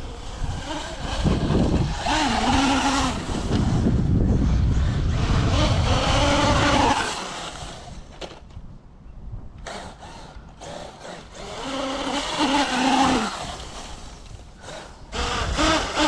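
Large electric RC truck driving hard over dirt and grass: its brushless motor whines, rising and falling in pitch with the throttle, over a hiss of tyres on the loose ground. There are two loud runs, one from about a second in to about seven seconds and another around twelve seconds, with a quieter stretch between them.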